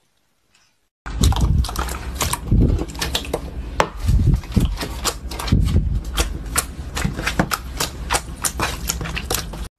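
Hands pressing and squishing clear blue slime: many sharp sticky clicks and pops with a few dull thuds of the presses. It starts about a second in and cuts off suddenly near the end.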